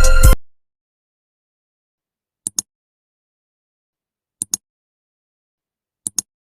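Background music that cuts off abruptly right at the start, then dead silence broken by three short double clicks about two seconds apart.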